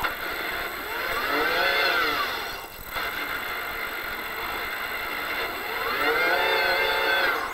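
Toyota Hilux rally-raid car's engine heard from inside the cockpit, revving up and easing off twice, once about a second in and again near the end, over steady cabin noise.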